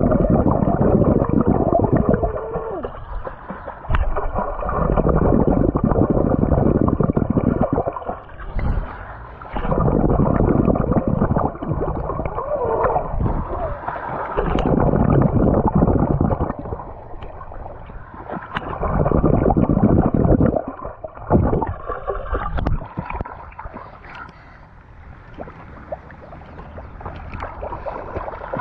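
Muffled rushing and bubbling of pool water heard through an action camera held underwater, as a swimmer moves past. It comes in waves of a few seconds with quieter gaps, and eases off near the end.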